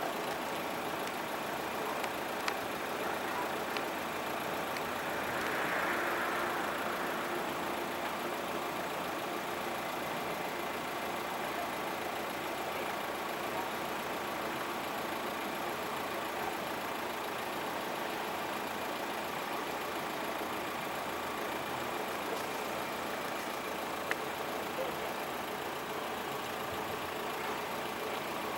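Steady engine noise that swells briefly about six seconds in.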